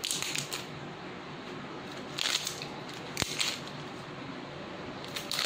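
Scissors snipping the plastic shrink-wrap seal on a jar of cream as the wrap is cut and peeled. The snips and crinkles come in a few short bursts, with one sharp click about three seconds in.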